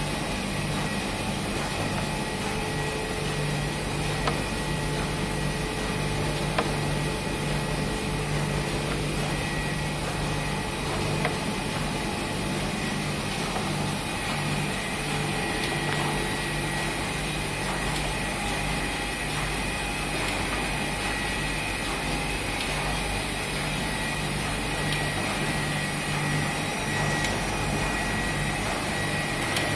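Sakurai SC72A screen printing press and UV curing line running steadily: a continuous machine hum with a low drone that pulses on and off and several steady high whining tones. A few light clicks stand out over it.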